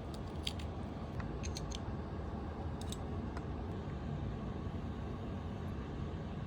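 A steady low background rumble with a handful of short, light clicks in the first few seconds.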